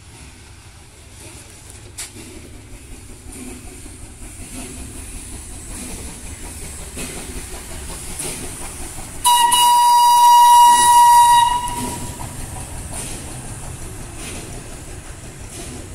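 Steam locomotive 740.423 gives one long, shrill whistle blast lasting about two and a half seconds, starting about nine seconds in. Under it the engine's rumble and clatter grow as it rolls past close by.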